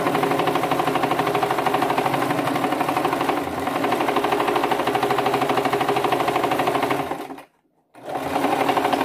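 Electric household sewing machine running steadily, its needle stitching rapidly through layered cloth. It stops for about half a second near the end, then starts stitching again.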